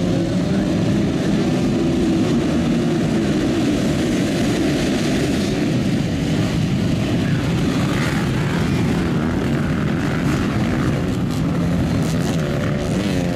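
A full field of motocross bikes held at high revs on the start line, then accelerating away together in a dense, overlapping engine drone as the pack races into the first turn.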